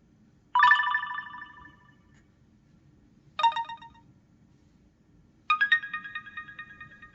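T-Mobile HD2 (HTC) smartphone playing a built-in ringtone through its loudspeaker: three short phrases of bell-like tones, each starting sharply and dying away, the last ringing longest.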